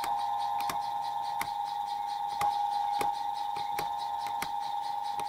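Steady electrical whine from a Transwave static phase converter running a three-phase motor, crossed by sharp clicks every half second to a second as its selector switch is turned to find the setting with the lowest current.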